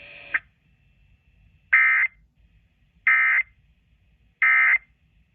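Emergency Alert System end-of-message tones: three short, identical bursts of digital data screech, each under half a second and about 1.3 s apart, marking the end of the alert broadcast. A fainter steady background cuts off just before the first burst.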